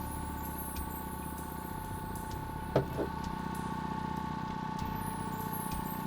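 Boat motor running steadily at trolling speed, a constant drone with a steady hum, broken by a sharp knock and a second, softer one just under halfway through.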